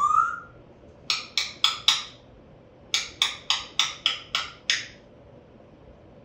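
African grey parrot clicking: a short rising whistle at the start, then four quick sharp clicks about a second in, then a run of about eight more at three to four a second.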